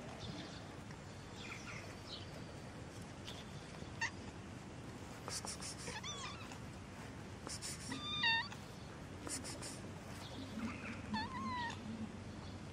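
Domestic cat meowing several times, short meows that rise and fall in pitch, the loudest about eight seconds in.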